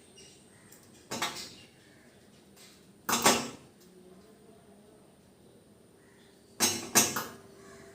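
Small metal tools clattering against a hard work surface: three short clinks, the last a quick double near the end.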